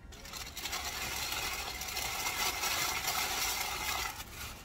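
Dense crinkling and crackling of a paper sandwich wrapper handled close to the microphone, stopping suddenly after about four and a half seconds.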